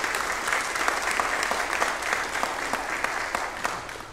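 Congregation applauding, dense clapping that dies away near the end.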